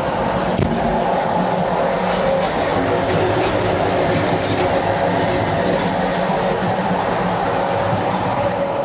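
Passenger train running along the line, heard from inside a carriage: a steady loud rumble of wheels on rail with a held hum, and a sharp click about half a second in.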